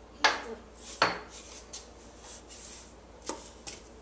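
A few sharp clicks and knocks of small hard objects, two louder ones within the first second and two fainter ones near the end.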